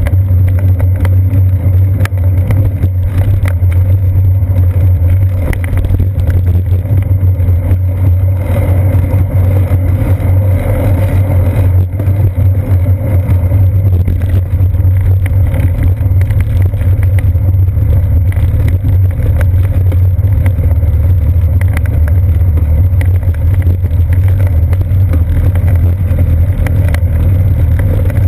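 Steady low rumble of a moving bicycle picked up through a seat-post-mounted GoPro Hero 2: tyre, frame and mount vibration carried into the camera, with frequent small clicks and knocks.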